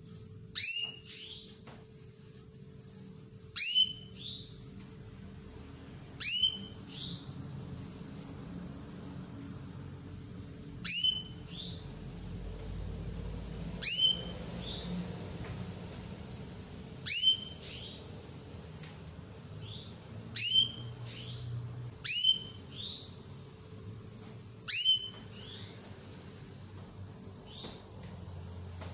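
Female domestic canary giving repeated loud downward-sliding calls, about nine of them every few seconds, some followed by one or two fainter calls. These are the calls used to stir male canaries into song. Behind them runs a steady, rapid, high-pitched pulsing chirp.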